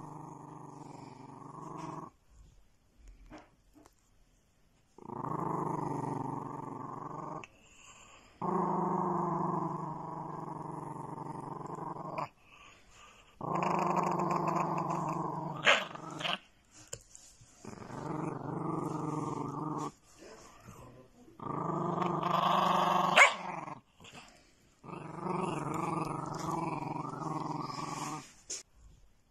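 A small dog growling in seven long, drawn-out bouts with short pauses between them, two of them broken by a brief sharp sound.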